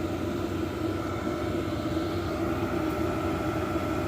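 8 kW diesel air heater converted to burn used oil, running steadily: its blower and burner give an even hum with a few steady tones over it.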